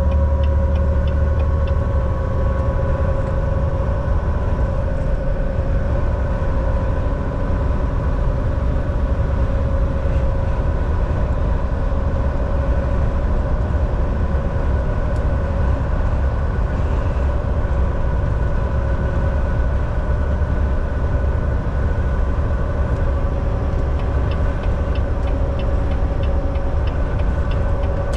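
Semi truck driving at a steady speed: a constant low engine and road rumble with a steady drivetrain whine over it. Faint ticking shows up near the end.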